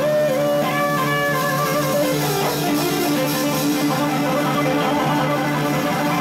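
Live band playing an instrumental passage led by amplified electric guitars, loud and steady.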